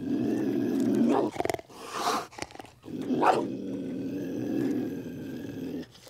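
Cougar growling in long low rumbles, broken by short snarls about a second and two seconds in and a sharper one about three seconds in, then growling on until it stops near the end.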